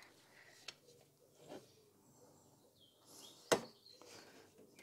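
Mostly quiet handling noise as the oil filter housing of a BMW M50 six-cylinder is worked loose by hand. There are a couple of faint knocks and one sharp click of a part or tool about three and a half seconds in. A bird chirps faintly just before the click.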